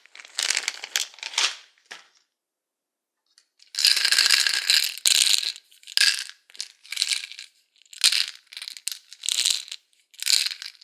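Pills rattling inside a pill bottle as it is shaken in bursts. First come a few quick shakes, then a pause of about two seconds, then one longer shake, then a string of short shakes.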